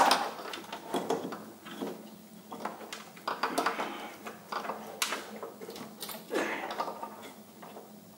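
A wiring harness in gold heat-reflective wrap being worked out by hand through a cramped engine bay: irregular rustling, clicks and knocks, with a louder knock near the start and more about five and six seconds in.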